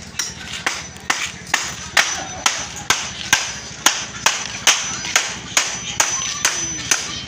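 Hammer blows on an old wooden chair frame, steady and even at a little over two strikes a second, with a faint high ring after some of the blows.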